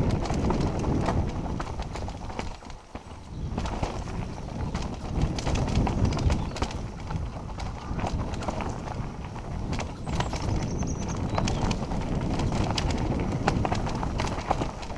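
Mountain bike descending a rocky dirt trail: tyres crunching over stones and the bike rattling and clattering with every bump, over a rough rumble of wind on the helmet camera's microphone.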